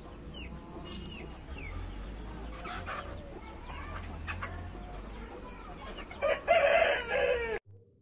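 A rooster crows loudly about six seconds in, cut off abruptly after a little over a second. Before it, repeated short, high, falling bird chirps sound over a low steady hum.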